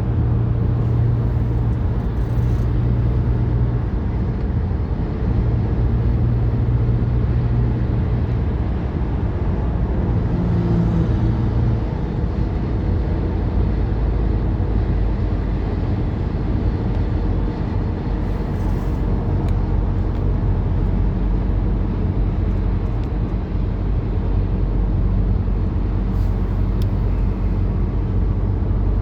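Heavy diesel engine running steadily, a constant low drone whose note drops slightly about twelve seconds in.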